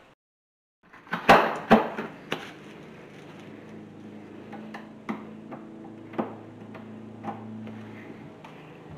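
Hands working a door's brass lever handle and chain lock: a few sharp clicks and knocks about a second in, then scattered lighter clicks over a steady low hum.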